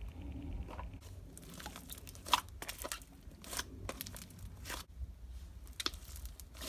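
Hands squishing and poking a butter slime made with Daiso clay and studded with bits of packing peanut, giving irregular small crackles and pops.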